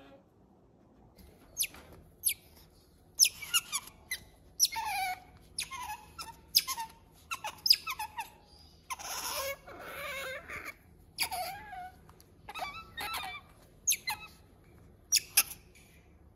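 Otter squeaking and chirping: a string of short, high calls, many falling in pitch, with a longer, rougher call about nine seconds in.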